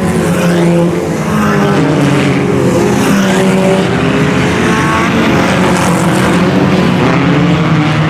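A field of IMCA Sport Compact race cars running hard around the track, with several four-cylinder engine notes overlapping and rising and falling as the cars go by.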